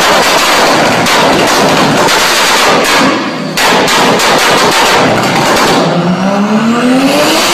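Very loud BMW E30 sedan engine and exhaust, crackling with rapid backfire pops as unburnt fuel ignites and flames shoot from the exhaust. Near the end the engine revs climb steadily in pitch.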